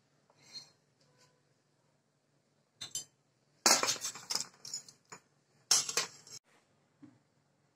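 Fried edible gum pieces pushed with a steel spoon off a steel plate and falling into an empty stainless-steel mixer-grinder jar: metal clinking and clattering in a few short bursts in the second half.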